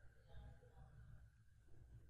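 Near silence: faint room tone with a low hum.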